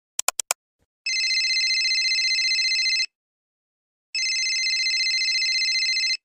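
Four quick sharp clicks, then an electronic telephone-style ringtone sounding twice, each ring a trilling two-second tone with about a second's gap between them.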